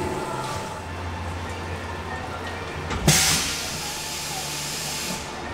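Optimum Optimill F80TC CNC mill running with a steady hum. About three seconds in there is a sharp clunk, then a loud hiss of compressed air for about two seconds: the spindle releasing its tool during an automatic tool change.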